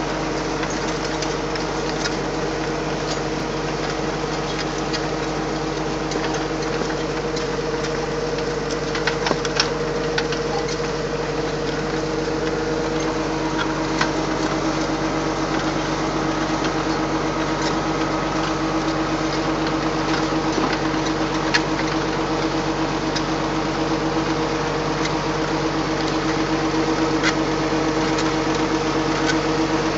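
Tractor engine running steadily under load as it tows a plastic mulch layer, with a few light clicks and rattles from the implement.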